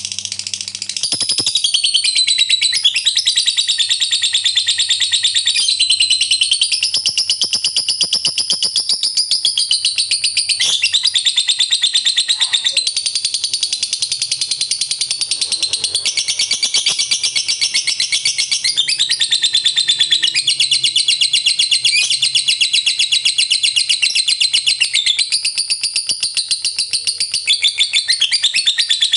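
Lovebird singing a long unbroken ngekek: a rapid, shrill chattering trill that shifts up and down in pitch without a pause.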